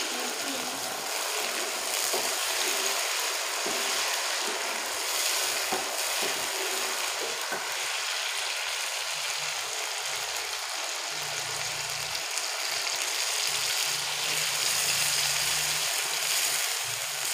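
Milk-soaked semolina poured into hot desi ghee and jaggery syrup in a steel pan, sizzling and bubbling steadily as it hits the fat. A wooden spoon stirs the mixture toward the end.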